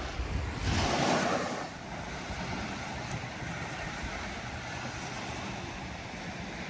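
Small waves washing onto a sandy beach, with wind buffeting the microphone. A louder rush of noise comes about a second in, then the steady surf and wind carry on.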